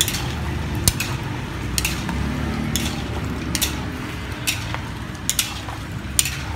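Metal spatula and ladle clanking and scraping against a steel wok while stirring chicken heads, a sharp clack roughly once a second over a steady low rumble.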